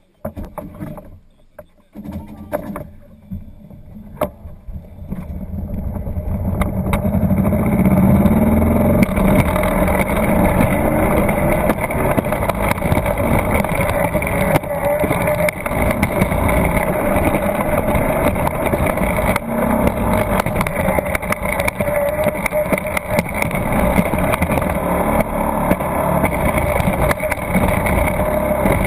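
Summer toboggan (alpine coaster) sled setting off and rolling along its track: quiet with a few clicks at first, then the wheels' rumble and whir build over several seconds to a steady, loud running noise that holds.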